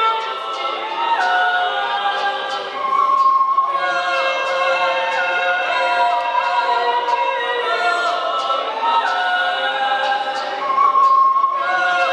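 Layered a cappella vocals built on a loop station: several sustained sung harmony lines stacked over one another, the same phrase repeating about every eight seconds, with faint short clicks keeping time on top.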